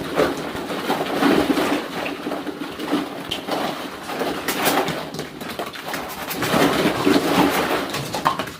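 Birds cooing in low, repeated calls, with scattered clicks and rustling throughout.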